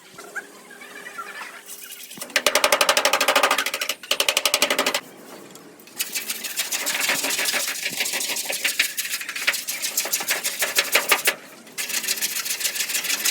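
Bursts of rapid, even tapping from a power tool working on the pickup's cab bodywork, each burst lasting a few seconds with short pauses between.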